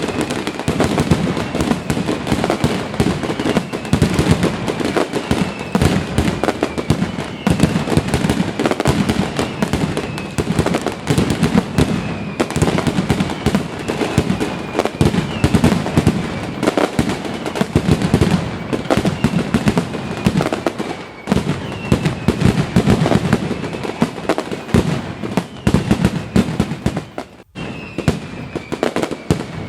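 A fireworks display going off continuously, with rapid overlapping bangs and crackling. Faint falling whistles recur every second or two.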